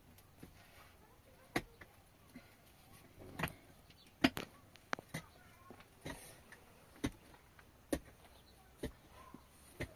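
Sharp knocks of a hand tool striking, at uneven intervals of about one a second, during hut building.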